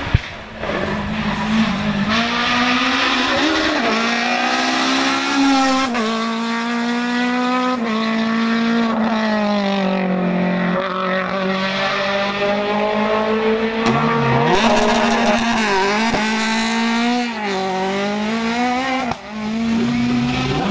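Citroen Saxo S1600 rally car's 1.6-litre four-cylinder engine revving hard through corners. The pitch climbs and drops again and again as it shifts gear and brakes, with a few sudden breaks.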